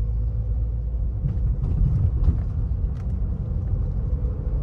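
Car on the move, a steady low rumble with a faint steady hum and a few light knocks.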